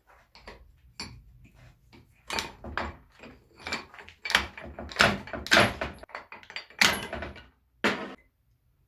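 Metal gearbox parts of an agricultural sprayer's transmission clanking and knocking as they are handled and set down during disassembly. It is an irregular run of a dozen or so knocks, some with a short metallic ring, loudest in the middle and stopping shortly before the end.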